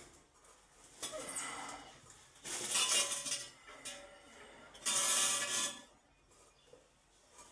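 Three bursts of scraping and clattering, like hard tools or metal being handled, each lasting about a second, with the second and third the loudest.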